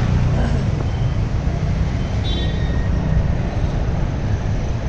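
Street traffic noise: a steady low rumble of motor vehicles on the road.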